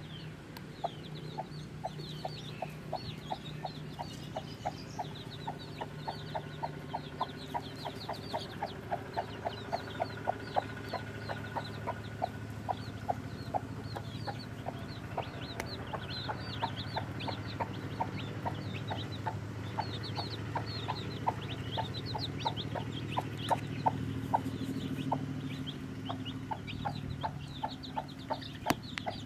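Mother hen clucking steadily, a rapid even run of short low clucks several a second, while her chicks cheep over it in quick high chirps.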